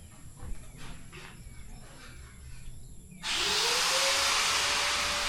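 After about three seconds of quiet, an electric power tool's motor starts suddenly, spins up with a quickly rising whine and settles into a steady, loud run.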